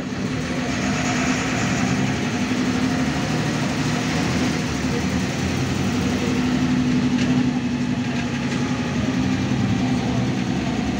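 Interior of a MAN A74 Lion's Classic city bus on the move: engine and road noise heard from inside the cabin, a steady low hum under an even rushing noise.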